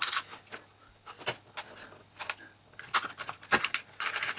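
Scattered small clicks and taps of plastic as the opened Victsing computer mouse's shell and parts are handled, with a quicker run of clicks about three seconds in.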